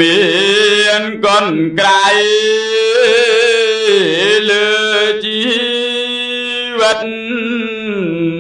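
Khmer smot chanting: a single voice sings long, drawn-out notes whose pitch wavers and slides, pausing briefly about a second in and again near seven seconds.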